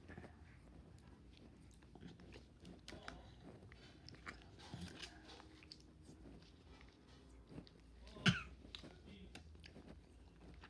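Faint mouth sounds of chewing and crunching sour candy chunks, many small scattered clicks. One short, louder cough-like burst about eight seconds in.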